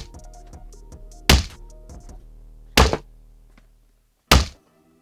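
Cardboard earbud retail boxes dropped one after another onto a tabletop: a loud thunk about every second and a half, three in all. Background music with a steady beat plays under them and fades out about four seconds in.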